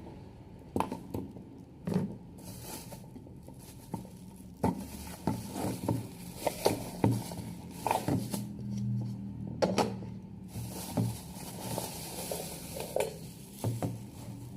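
Irregular clinks and knocks of an electric cooking pot and its parts being handled, with soft rustling in between.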